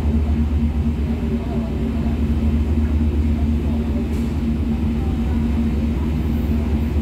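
A Star Ferry's engine runs as a steady low rumble with a constant hum above it, heard from on board the passenger deck.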